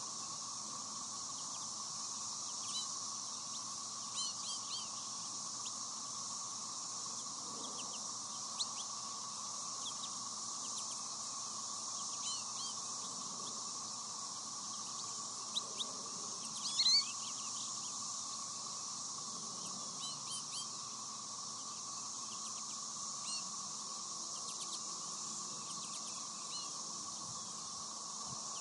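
American goldfinches giving short, scattered chirping calls, the loudest cluster a little past halfway, over a steady insect chorus.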